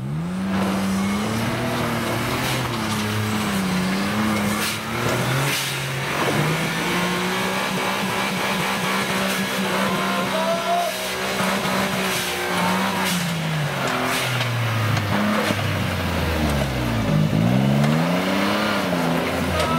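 Off-road 4x4's engine running under load, revving up and down several times, with a big drop and rise in engine pitch near the end.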